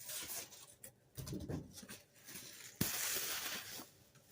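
Packing material being handled and pulled from a cardboard box: irregular rustling and scraping with a few soft thuds. About three seconds in there is a sharp knock, then about a second of louder rustling.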